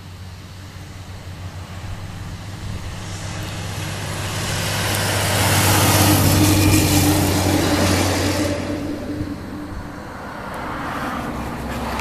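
Heavy dump truck passing on the road: its engine drone and tyre noise build for several seconds, peak about halfway, then fade away. The traffic sound rises again near the end.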